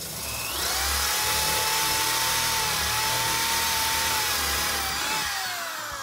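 Corded electric drill boring a hole through a Jeep Wrangler JL hardtop: the motor spins up about half a second in, runs at a steady whine under load, then winds down with falling pitch near the end.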